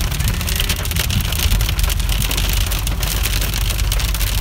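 Hail hitting the car's roof and windshield, heard from inside the cabin as a dense, rapid patter of clicks. Under it runs the low rumble of the car driving.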